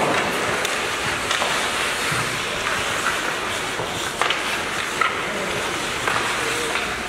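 Ice hockey game in play: a steady rush of rink noise broken by several sharp clacks of sticks and puck, the loudest about four and five seconds in.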